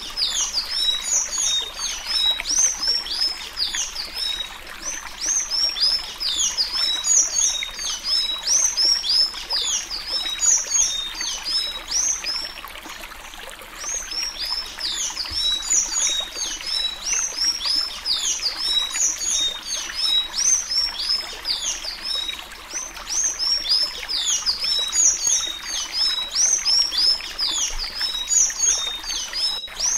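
Blue-gray tanager singing the 'suí-suí' song of the Alagoas type: a fast, continuous run of high, squeaky downslurred notes, with brief lulls about thirteen and twenty-two seconds in.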